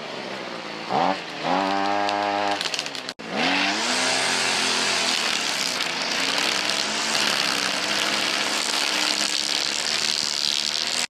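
Gas string trimmer (weed eater) engine revving up and down twice. About three seconds in it breaks off abruptly, and a steady rushing noise takes over with the engine's tone fading beneath it.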